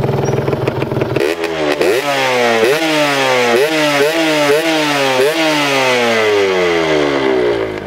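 Honda Nova Dash's two-stroke single-cylinder engine running steadily, then revved in about six quick throttle blips from a little over a second in, each rising sharply and falling back, before the revs ease down near the end.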